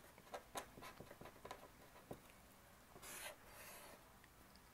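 Faint sound of a pen writing on paper: a string of short scratchy strokes as letters are written, then a few longer strokes as straight lines are drawn in the second half.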